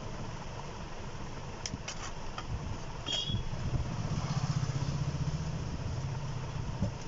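Low, steady engine rumble like a motor vehicle idling, growing louder about halfway through, with a few light clicks and a brief squeak from handling the wire and circuit board.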